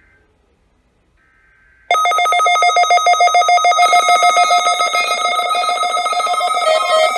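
Several weather radios, among them a Midland WR-100, a RadioShack 74-109 and a Black & Decker WDR5B, sounding their alert alarms together for a NOAA Weather Radio Required Weekly Test. Faint steady data tones come first, then about two seconds in a loud mix of electronic beeping tones starts abruptly, pulsing about four times a second.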